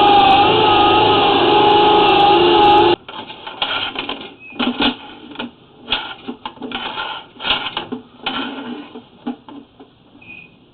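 Motorised drain-cleaning machine running steadily with a whine, then shutting off abruptly about three seconds in. After that come irregular metallic clattering and knocks, like the cable and gear being handled.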